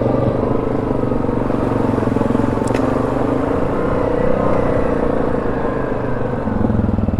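ATV engine running steadily at low revs. It grows a little louder and deeper near the end, with one short click about a third of the way in.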